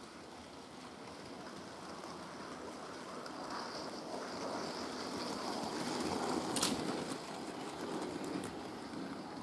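Bachmann model of a BR Standard Class 4 steam locomotive running along model railway track, its motor and wheels on the rails making a steady whirring rumble that grows louder as it approaches. A sharp click sounds about two-thirds of the way through, with a fainter one near the end.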